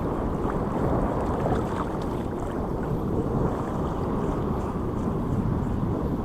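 Steady wind rushing on the microphone, a low, even rumble with no break.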